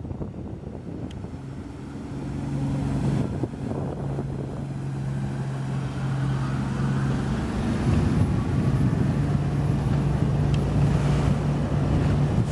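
Boat engine running steadily at speed: an even drone over a rushing noise of wind and water, growing louder about two seconds in.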